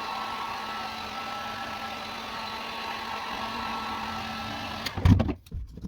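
Electric heat gun running steadily, its fan motor humming with a blowing hiss, as it heats butyl foil-backed sound deadener to make it soft and sticky. It cuts off suddenly about five seconds in, followed by a loud thump and a few knocks.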